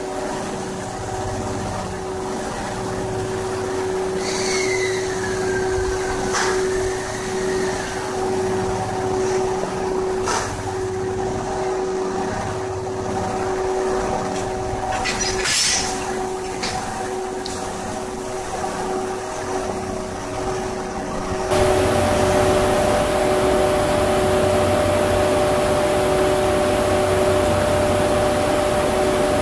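A standing EF81 electric locomotive humming steadily from its auxiliary machinery, with a low pulsing underneath and a few faint clicks. About halfway there is a brief, sharp hiss of air. About two-thirds of the way in the sound changes abruptly to a louder, steadier hum.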